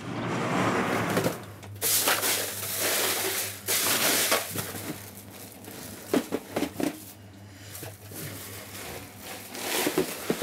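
Plastic fish crates being lifted and shifted, with ice and plastic sheeting crunching and rustling and a few sharp knocks of crate against crate. A steady low hum runs underneath.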